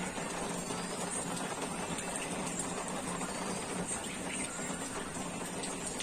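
Heavy rain falling steadily, an even hiss with faint scattered drip ticks.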